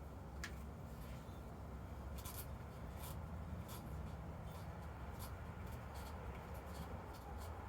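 Scattered light clicks and scraping of small hand work over a steady low hum.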